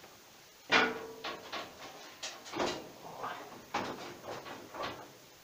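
A series of clunks and knocks from a person climbing onto a homemade tractor and settling into its seat: boots on the metal floor plate and the seat and frame knocking. The first clunk, under a second in, is the loudest and rings briefly like struck metal.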